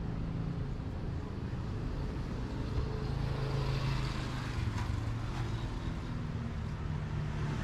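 Street traffic noise: a motor vehicle engine running nearby with a steady low hum, over the general noise of the street.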